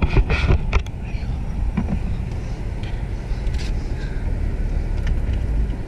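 Car driving on a city street, heard from inside the cabin: a steady low rumble of engine and road noise.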